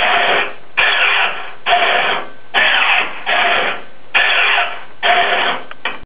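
Electric linear actuator on a manual hydraulic valve's control rod, its motor running in short strokes of about half a second, about seven times with brief pauses, driving the valve rod back and forth under radio control.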